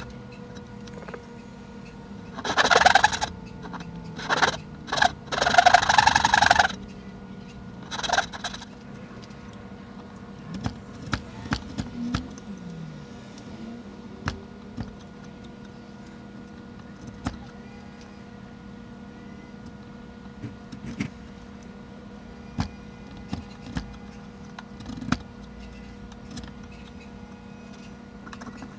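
A brass-backed dovetail saw cuts wood in several short bursts of strokes during the first eight seconds or so. After that come scattered light ticks and scrapes of a chisel paring waste from the joint, over a faint steady hum.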